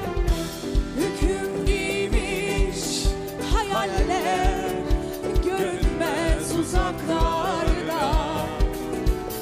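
Live Turkish pop duet: a man and a woman singing into microphones over a band, with a steady kick-drum beat of about two a second.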